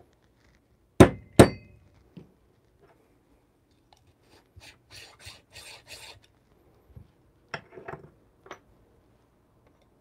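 Two sharp knocks about a second in as a metal espresso portafilter is knocked down on a rubber tamping mat, then a run of short scraping rubs as the coffee grounds in the basket are worked with a distribution tool, and a few light clicks near the end.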